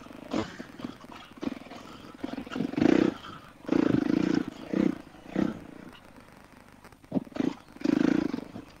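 Husqvarna FE 350 dirt bike's single-cylinder four-stroke engine revving in repeated short bursts as the throttle is opened and shut over rough, muddy trail, rising and falling several times.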